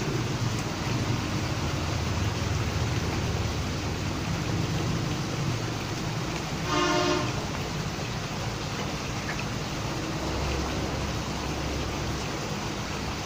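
Steady rush of agitated water in a koi holding tank, its surface churned by aeration and crowding fish. About seven seconds in, a short pitched tone sounds for about half a second.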